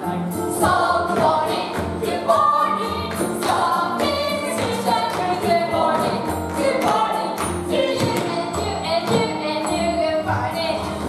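A stage musical number: a group of voices singing together over instrumental accompaniment with a steady beat.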